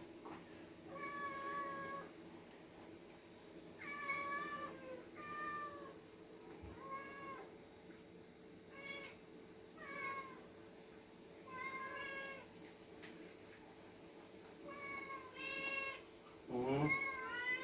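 Domestic cats meowing over and over, about ten separate rising-and-falling meows a second or two apart, calling for food while it is being put out. A faint steady hum sits underneath.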